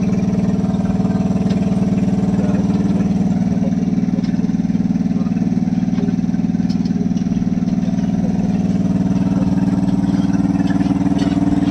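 Engine on a fishing boat running steadily with a low, even hum. Its pitch lifts a little about a third of the way in and again near the end.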